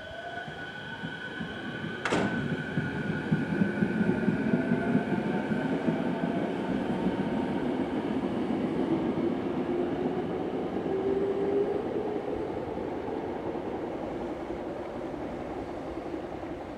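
Tokyo Metro 05 series electric train pulling out, its traction motors whining in tones that rise in pitch as it gathers speed over a low rumble of wheels on rail. One sharp click about two seconds in.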